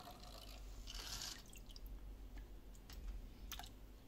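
A fishing lure let go by hand into a pail of water: a short, faint splash about a second in, then a few scattered drips and light clicks.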